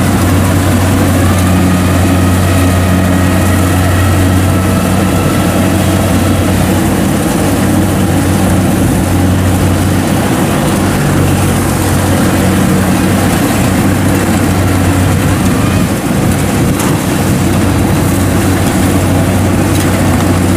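Kubota DC70 Plus combine harvester's diesel engine and harvesting machinery running steadily while it cuts rice: a loud, even drone with a deep hum underneath.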